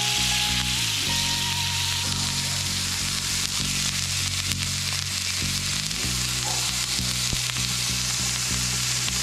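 Halved slipper lobsters sizzling steadily on a hot gas barbecue as garlic butter is spooned over them and drips onto the hotplate. Background music with low held notes plays underneath.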